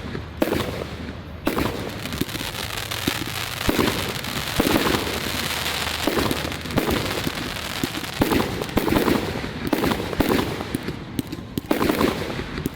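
Fireworks going off: a rapid, dense crackling with heavy bangs from bursting shells about every second.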